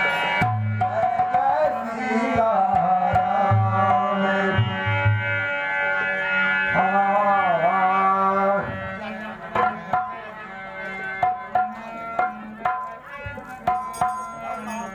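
Harmonium playing held notes, with a voice drawing out long wavering notes in the first half; from about halfway a dholak joins with a run of hand-drum strokes.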